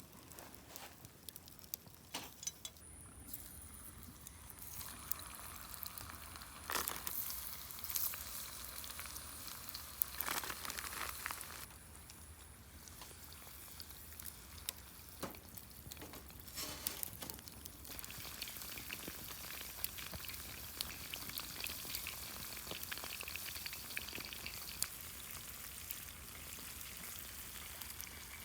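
Salt karaage (fried chicken) deep-frying in hot oil over a campfire: a steady fine sizzle with many sharp pops and crackles, the sizzle growing denser about two-thirds of the way through.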